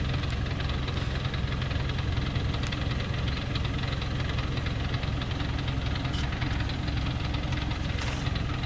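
Diesel engine of a Thaco Forland FC950 4WD truck running with a steady, even drone while the chained truck sits stuck on a rocky clay slope.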